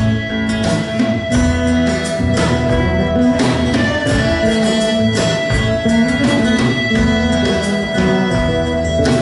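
Live rock band playing an instrumental passage: acoustic and electric guitars, keyboards and a drum kit, with long held melody notes over a steady beat.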